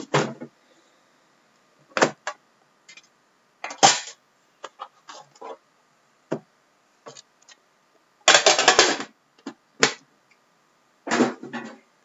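Knocks, taps and clicks of hands handling and sliding open a box of hockey trading cards, with a short scraping rustle about eight seconds in that is the loudest sound.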